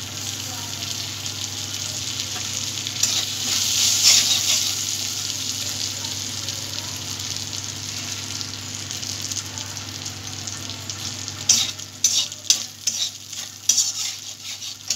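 Dried red chillies and whole cumin seeds sizzling in hot oil in a kadai as a tempering (phoron), with the sizzle loudest a few seconds in. Toward the end, a metal spatula clicks and scrapes against the pan as the spices are stirred.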